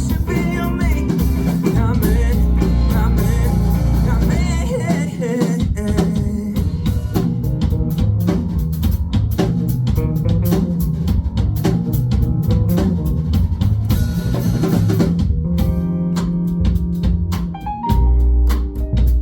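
A band playing live on drum kit and guitar, with a voice singing over it for the first few seconds. After that the drums drive a busy stretch, and about fifteen seconds in the band moves to held chords.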